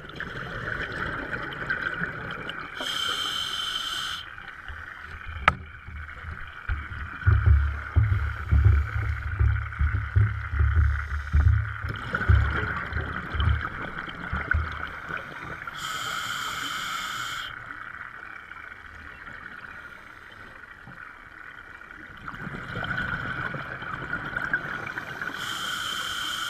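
Scuba breathing through a demand regulator underwater: short hissing inhalations, each followed by a long rumbling, bubbling exhalation, over a steady hiss. A single sharp click about five seconds in.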